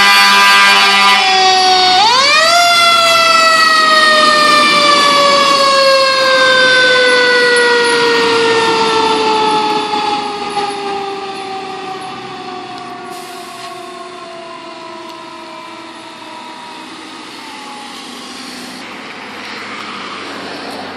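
Fire truck's mechanical siren: a steady horn-like blast to about a second in, then the siren winds up sharply about two seconds in and winds down slowly over some fifteen seconds, growing fainter as the fire apparatus drives away, with the trucks' engines under it.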